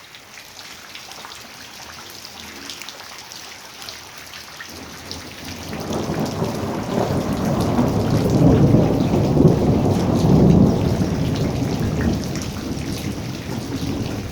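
Steady rain falling, then a long, loud roll of thunder that builds about a third of the way in, peaks around the middle and slowly fades.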